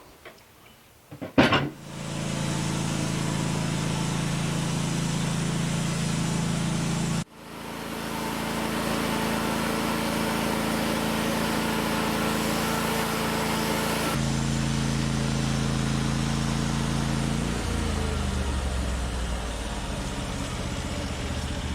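A sharp knock, then an engine running steadily. The sound breaks off abruptly about a third of the way through and changes character suddenly about two-thirds in. Near the end the engine's pitch drops as it slows.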